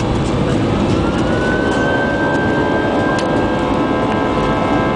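Airbus A320's jet engines heard from inside the cabin: a loud, steady rumble with a whine that rises in pitch about a second in and then holds, as the engines spool up for take-off.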